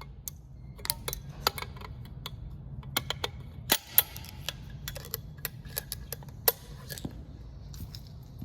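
Irregular light clicks and clinks of small hard objects being handled, over a faint low steady hum.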